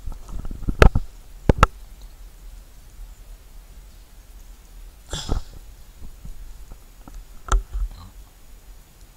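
Handling noise from a hand-held digital fishing scale being held right up at the camera: a few sharp knocks and thumps, two close together about a second and a half in and two more near the end, with a brief rustle about five seconds in.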